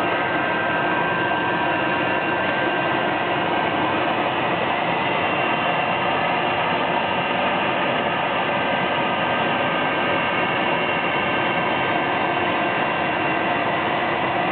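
Blow dryer running continuously: a steady rush of air with a constant motor whine.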